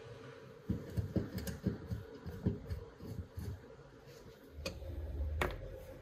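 Light, irregular metal clicks and taps of a hand screwdriver working the screws of a rusty antique cast-iron iron's handle bracket. Near the end there is a low rumble and two sharper knocks as the metal parts are handled.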